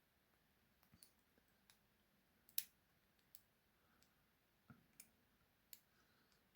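Faint, scattered clicks of a lock pick and tension wrench working inside a padlock, about six in all, the loudest about two and a half seconds in.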